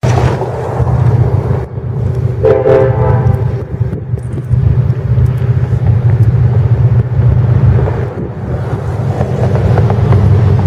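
Diesel freight locomotive running with a heavy, steady low rumble, and a short horn blast lasting about a second, a couple of seconds in.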